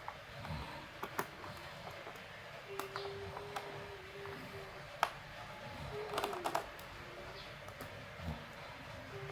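Scattered sharp clicks and small knocks from handling a laptop's plastic case and parts during a RAM upgrade, with a cluster of quick clicks about six seconds in. A low steady tone sounds twice in the background.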